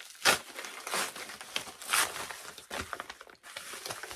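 Crinkling and rustling of a padded jiffy bag and its plastic wrapping being opened by hand, in a few short bursts about a second apart.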